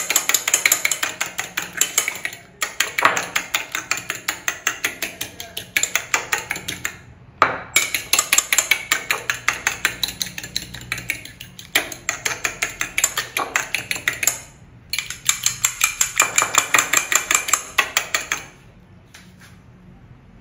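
Metal fork beating egg in a ceramic bowl: rapid clicking of the tines against the bowl, in bursts of a few seconds with brief pauses, stopping near the end.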